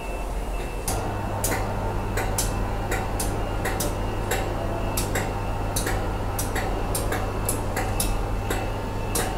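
Regular mechanical ticking, a little over two ticks a second, over a steady electrical hum that comes on about a second in, with a faint high steady tone underneath.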